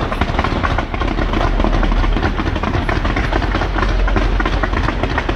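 Fireworks crackling and popping in a dense, continuous stream of rapid small reports over a steady deep rumble.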